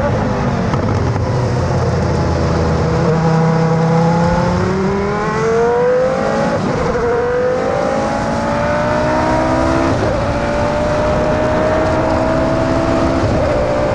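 Prost Formula 1 car's V10 engine accelerating hard. Its pitch climbs and drops suddenly at each upshift, three times.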